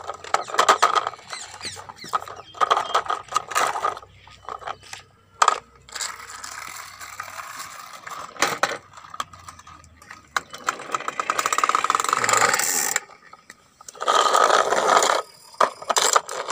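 Plastic toy cars and trucks pushed and handled on rough concrete: rattling, scraping wheels in several bursts of a second or two, with a few sharp plastic clacks between.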